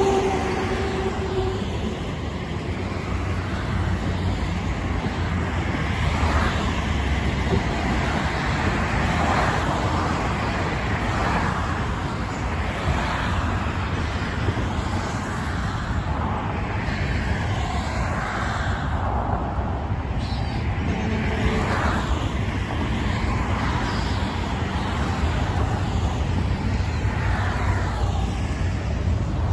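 Multi-lane highway traffic: a steady rushing of tyres and engines with a low rumble, swelling as cars and trucks pass every few seconds. A vehicle's pitched engine tone falls away in the first second or so.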